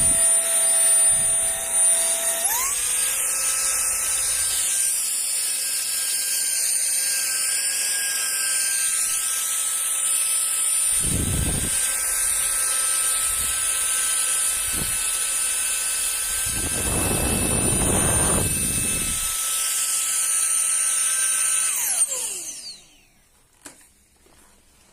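JIMMY JV51 cordless vacuum cleaner's 100,000 rpm digital motor running with a steady high-pitched whine. About two and a half seconds in, the pitch steps up to a higher power setting. Near the end the motor is switched off and winds down, falling in pitch. Low rumbles come partway through, around the middle and again later.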